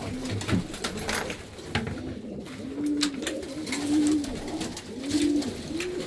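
Homing pigeons cooing in a small wooden loft: repeated short coos, each rising and falling, about one or two a second, with scattered light clicks and knocks.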